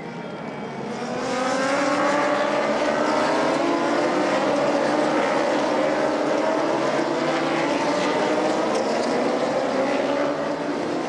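A field of superbike endurance racing motorcycles going by at racing speed, many engines overlapping, their pitches rising and dipping as they accelerate and shift. It swells louder about a second in as the pack arrives.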